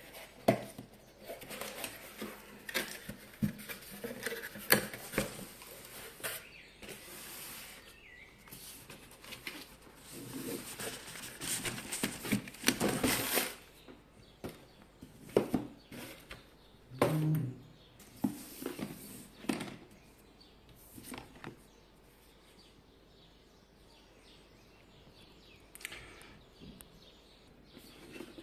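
Cardboard box and packaging being handled and opened on a table: rustling and scraping with many sharp clicks for the first half, then occasional taps and a dull bump as the boxed dashcam is lifted out and its lid opened.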